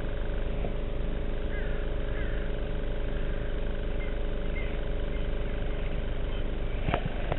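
A steady motor hum over a low rumble, holding an even level, with a few faint chirps about two seconds in and a single sharp knock near the end.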